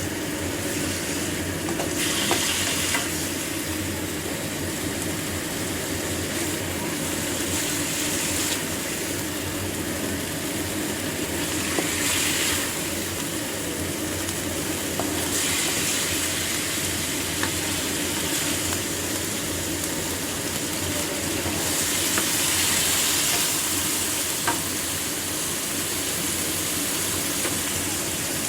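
Food sizzling as it fries in a pan while being stirred, the hiss swelling and easing several times, with a few light clicks of a utensil against the pan.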